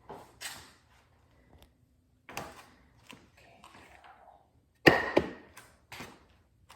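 A series of separate knocks and clatters from hard objects being handled and set down. The loudest is a sharp clank about five seconds in, with a brief ring after it.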